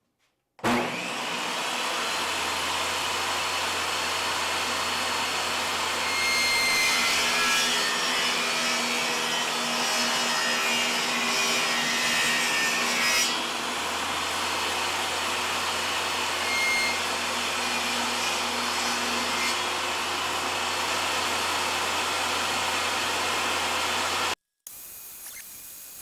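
Ryobi 10-inch table saw running, its blade cutting a quarter-inch-deep groove along pine boards, louder for several seconds in the middle while the blade is in the wood. The sound cuts off suddenly near the end.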